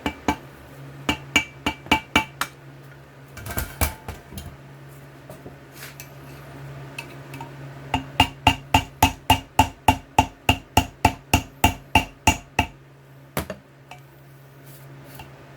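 Hammer tapping on metal, driving the key out of a snowblower auger gearbox shaft. A few ringing taps come first, then a quick run of about twenty taps at four or five a second before it stops.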